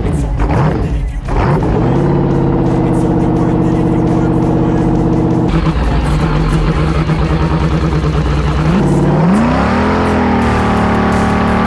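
6.0-litre LS V8 engine in a jet ski running under load, steady at first, then rising in pitch as it accelerates about nine seconds in, with the rush of water and spray around the hull.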